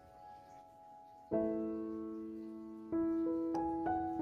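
Soft background piano music: slow chords and single notes struck and left to ring out, with a new chord about a second in and more notes near the end.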